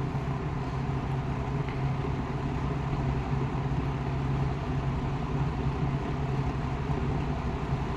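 Westinghouse AR20-1 20-inch two-speed box fan running steadily on low speed: a constant motor hum under the rush of air from the blades.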